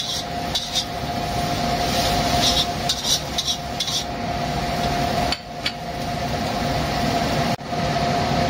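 Spatula stirring and scraping okra stir-fry in a pan, with scattered clinks against the metal over a steady hiss of cooking.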